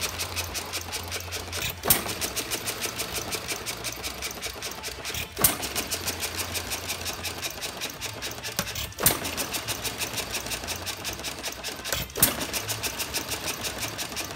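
Ajax sideshaft hit-and-miss gas engine running: a fast, even mechanical clicking as it coasts, broken by a single firing bang about every three and a half seconds, four times in all.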